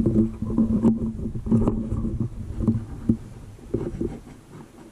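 Low rumbling handling and wind noise on a rifle-scope-mounted camera, with a low steady hum through the first three seconds and a few light knocks. It dies away near the end.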